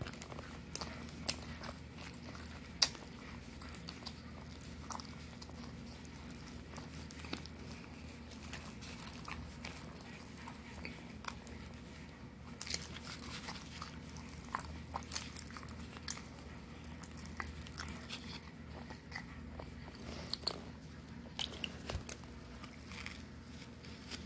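A person biting and chewing bread with chicken salad: irregular wet mouth clicks and soft crunches over a steady low hum.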